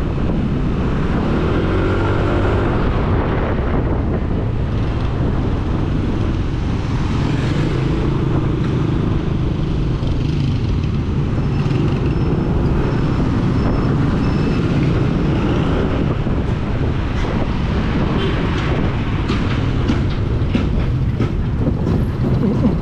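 Yamaha motor scooter running as it is ridden through traffic, its engine pitch rising and falling with the throttle under steady road and wind noise on a helmet-mounted microphone.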